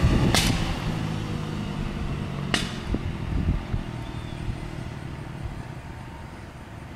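Small dirt bike engine running at a distance and fading away, heard as a low rumble. Two sharp clicks come about a third of a second and two and a half seconds in.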